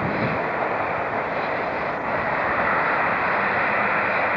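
Class 165 diesel multiple unit's engines running with a steady drone as the unit pulls out of the station, a little louder from about halfway through.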